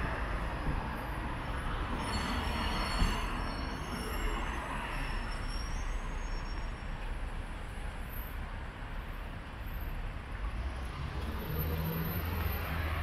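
City street traffic on rain-wet roads: a steady hiss of tyres and engines, with a thin high squeal a couple of seconds in and a low engine rumble passing near the end.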